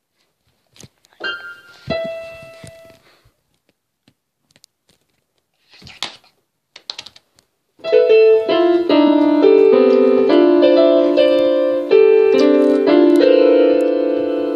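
A dog pressing the keys of an electronic keyboard, sounding piano tones. At first only a few stray notes and clicks; about halfway in it starts holding down clusters of several keys at once, giving loud, jumbled chords that shift every second or so.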